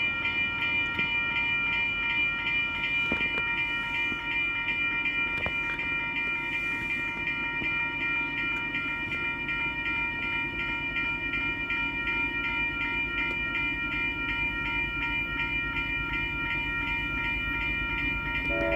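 Railroad grade-crossing warning bell ringing steadily in a rapid, even rhythm, over the low rumble of an approaching train. The train's horn starts to sound right at the end.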